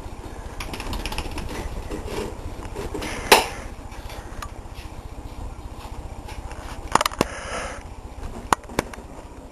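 A dog scrambling about on a couch: soft thumps, scuffs and claw clicks on the cushions, with a sharp knock about three seconds in and a few more clicks near the end, over a steady low hum.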